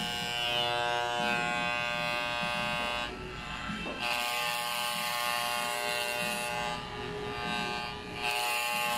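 Corded electric hair clipper buzzing steadily as it is run over the scalp, its hum twice dropping and muffling for about a second as the blades press into the hair. The clipper's blades are clogged with hair and barely cutting.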